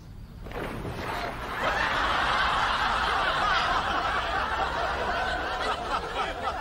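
Audience laughter from many people. It swells about a second and a half in and thins out near the end.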